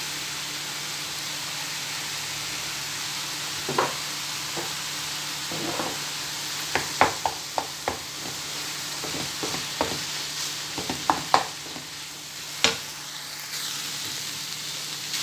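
Minced meat with grated carrot and zucchini sizzling steadily in a frying pan as it is stirred, with the cooking utensil scraping and knocking against the pan again and again from about four seconds in. The meat is being cooked through.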